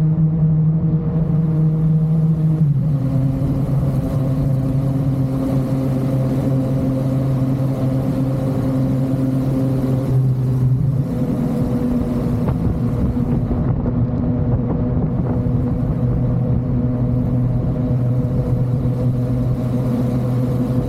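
Yamaha MT-09's three-cylinder engine running at steady revs under way, its note dropping a step about three seconds in and again around ten seconds in.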